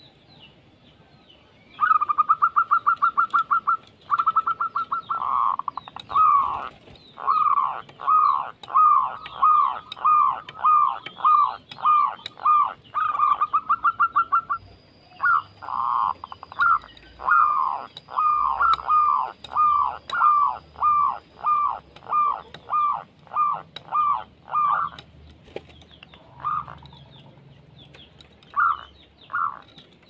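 Dove cooing: a fast stuttering run of notes, then a long series of repeated falling coos at about two a second, thinning out to a few scattered notes near the end.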